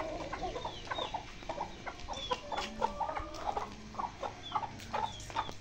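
Chickens clucking in many short, separate calls, with high falling chirps mixed in.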